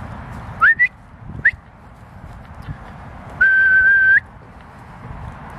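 Whistling to call the dogs: two short rising whistles, then one long steady whistle that turns up slightly at its end.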